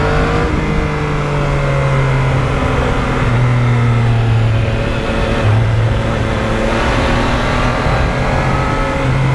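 Yamaha MT-09's inline three-cylinder engine running under way, its note steady but shifting in pitch a few times, with wind rush over the microphone.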